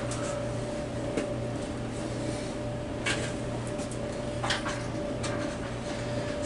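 A steady low hum, with a few light knocks and clicks scattered through it.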